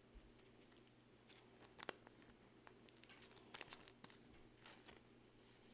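Quiet handling of trading cards: a few faint scattered clicks and slides as cards are flipped and set down, over a low steady hum.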